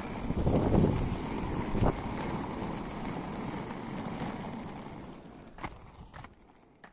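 Wind buffeting the microphone over a low rumble of movement along the road, gusting early on and then fading away over the last couple of seconds, with a few faint clicks near the end.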